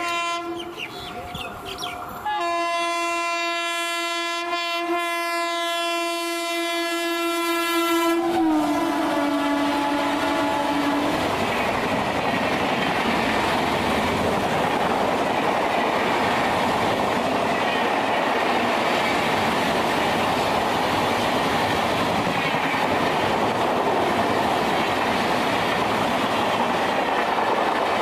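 WAP-7 electric locomotive horn: a short blast, then a long steady blast of about six seconds that drops in pitch as the locomotive passes. Then the express's coaches run by at speed, their wheels clattering over the rail joints.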